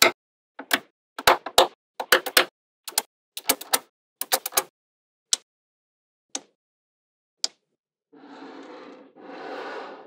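Small neodymium magnetic balls clicking together in quick clusters of sharp clicks as pieces are snapped onto a ball-built wall, thinning to a few single clicks. Near the end come two stretches of dry rubbing, scraping noise as the magnetic wall panel is handled.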